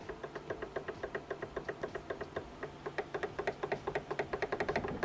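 Worn steering rack from a Honda Civic Ferio knocking rapidly and evenly, about seven knocks a second, as it is rocked back and forth by hand. The knocks grow louder about three seconds in. The knocking comes from heavy play in the rack, and it is the same knock the car made on the move.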